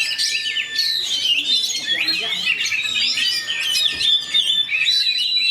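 Oriental magpie-robin (kacer) singing a fast, tightly packed song of rapid chirps and quick rising and falling whistles with hardly a break: the rapid 'roll' style that songbird keepers prize.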